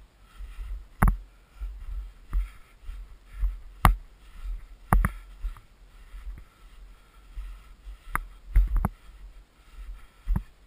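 Footsteps crunching through snow on a hiking trail, with the rumbling, irregular handling noise of a body-worn camera and several sharp knocks, the loudest about a second, four seconds and five seconds in, and a quick cluster near the end.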